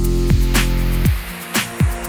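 Background electronic music with a steady beat and falling bass-drum hits; the deep bass drops out about a second in.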